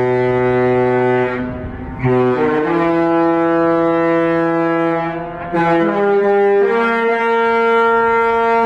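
Cruise ship's musical horn sounding a slow tune: about six long, loud held notes at changing pitches, with brief breaks between them.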